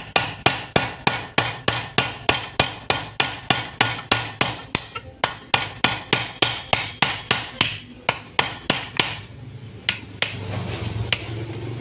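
A hammer peening the rivet pins of a Honda CBR150 clutch outer over a vise, so that the pins flare and lock the new clutch damper rubbers in place. The sharp metal-on-metal strikes come about three a second, then thin out and stop about nine seconds in, with a few lighter taps near the end.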